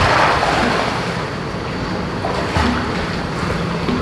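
Pool water splashing and sloshing as pit bulls paddle, with a burst of splashing at the start.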